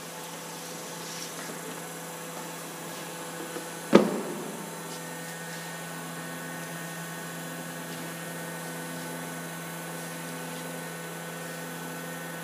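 An automatic L-welding machine gives one sharp metallic clunk about four seconds in, then runs with a steady electrical hum that takes on extra tones.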